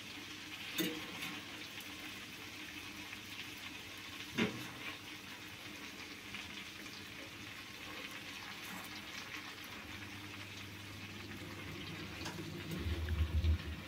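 Melted butter with spices sizzling gently in a pan as halved boiled eggs are laid in, with two light clicks of the fork against the pan about a second in and about four and a half seconds in, and a few low bumps near the end.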